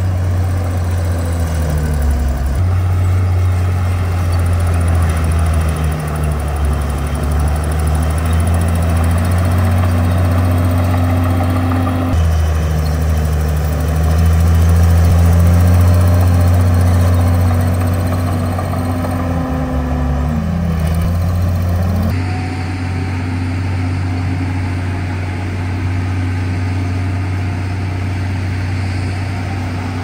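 Diesel engine of a Komatsu D51PX bulldozer running hard and steady, its pitch dipping briefly and recovering twice. The sound shifts abruptly a couple of times along the way.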